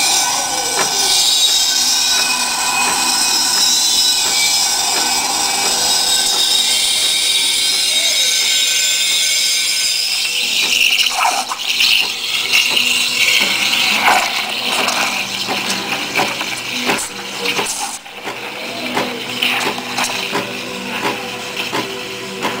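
Steam wand of a DeLonghi Magnifica Rapid 3300 espresso machine frothing milk in a stainless steel pitcher. A loud hiss starts suddenly and holds steady for about ten seconds, then turns rougher with many short crackles, and drops in level about eighteen seconds in.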